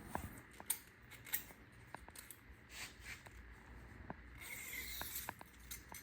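Scattered light clicks and taps of hand tools and small metal parts being handled while fitting a holeshot device to a dirt bike's front fork, with a brief scraping stretch about four and a half seconds in.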